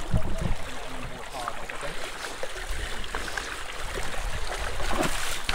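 Sea water rushing along the hull of a sailing yacht under way, rising to a louder wash near the end.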